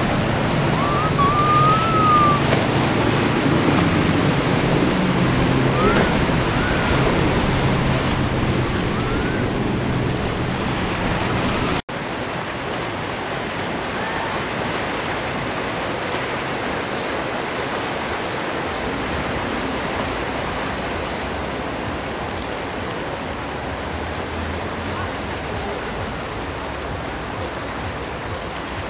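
Steady rush of churned water and wind from a jet ski running through spray, with a low engine hum under it. About twelve seconds in the sound cuts off sharply and gives way to a softer, steady wash of a motor yacht's wake.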